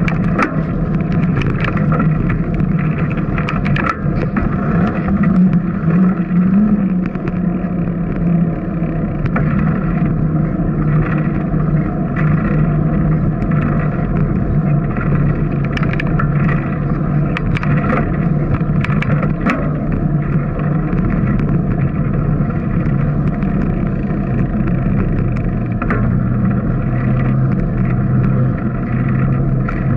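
Bicycle rolling along a paved street: a steady rumbling hum of riding noise, with scattered light clicks and rattles.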